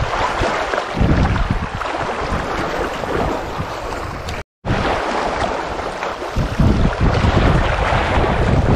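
Wind buffeting the microphone over small waves lapping against the rocky shore, a steady rumbling rush that cuts out completely for a split second about halfway through.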